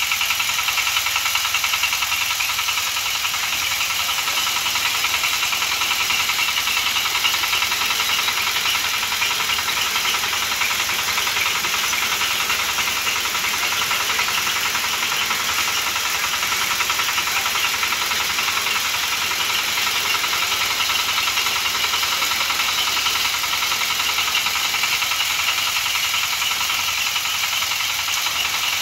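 Rice threshing machine running steadily under load, its small stationary engine driving the threshing drum.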